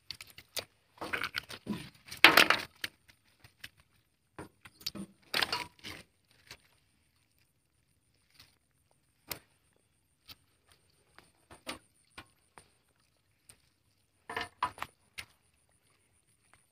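Scattered knocks, clicks and rattles of things striking a small boat's hull, in short clusters: the loudest about one to three seconds in, another near six seconds, and one more near the end.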